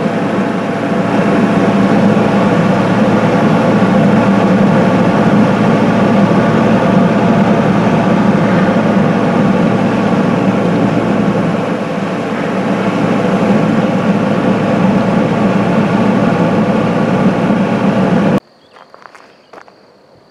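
Excavator's diesel engine idling steadily, heard from the cab, until it cuts off suddenly near the end. After that comes a faint steady high insect trill with a few light clicks.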